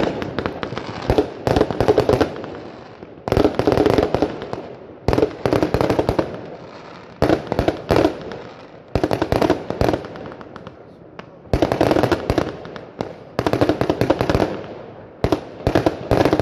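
Aerial fireworks going off in rapid volleys of sharp bangs and crackles, a new cluster roughly every two seconds, each fading away before the next.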